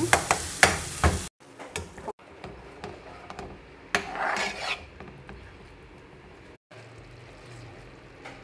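A spoon scraping and clicking against a frying pan as a thick chilli-garlic sauce sizzles, with sharp knocks of the spoon on the pan in the first second. It cuts off abruptly, and then the sizzling and stirring go on more quietly, with a louder burst of hissing about four seconds in.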